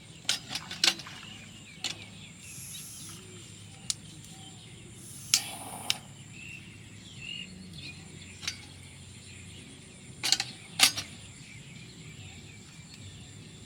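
Outdoor ambience with a faint steady insect drone, broken by scattered sharp clicks and knocks, the loudest two close together near the end.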